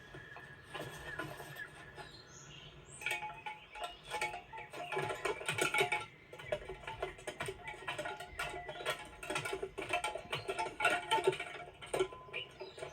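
Animated-film score music with many quick clicks and taps over it, busier from about three seconds in.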